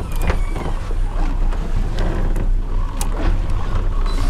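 A boat's engines run steadily at sea, a low rumble mixed with wind and water noise. A few sharp clicks and short faint whines from the hand-crank fishing reel break through it while a hooked swordfish is being fought.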